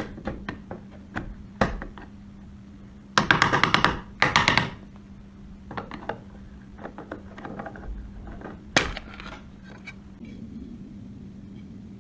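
Hand work on metal gun parts: scattered clicks and knocks, with two short bursts of rapid scraping strokes about three and four seconds in. A low steady hum runs underneath.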